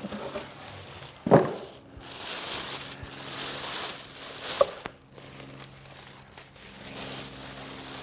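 Clear plastic bag and brown paper packing crinkling and rustling as a sewing machine is unwrapped, with a sharp knock about a second in and another just before the middle. A faint steady low hum runs underneath.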